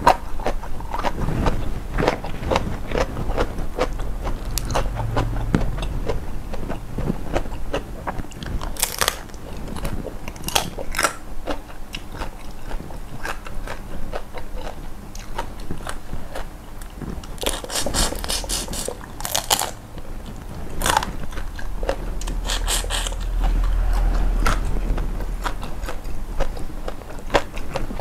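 Close-miked eating: a person biting and chewing crunchy food, with irregular crunches and wet mouth sounds, and quicker runs of crunches a little past halfway.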